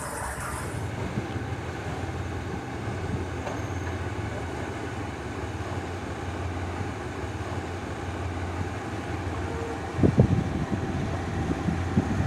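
Passenger train running along the track: a steady rumble and rattle with a low hum, and a few sharp knocks about ten seconds in.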